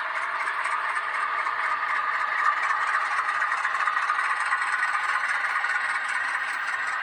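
H0-scale model train running along the layout track: a steady whirring rolling noise of the model locomotive's motor and wheels, with fine rhythmic clicking and rattling from the wheels on the rails.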